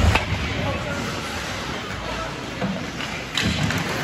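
Hockey rink boards and glass taking a hard hit right at the start as a player is driven into them, then a second sharp bang against the boards about three and a half seconds in, over the steady hum of the arena.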